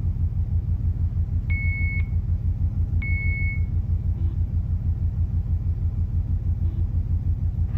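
Two short, single-pitch electronic beeps from a Lars Thrane LT 3100S GMDSS terminal, about a second and a half apart, during its monthly distress alert test. Both sound over a loud, steady low machinery rumble that pulses quickly.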